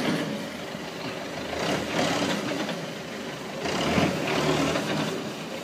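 Street traffic noise: vehicle engines and road noise that swell louder and fade several times.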